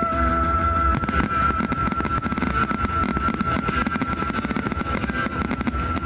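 New Year's fireworks going off: many cracks and bangs in quick succession over a low rumble, with one steady high tone held throughout.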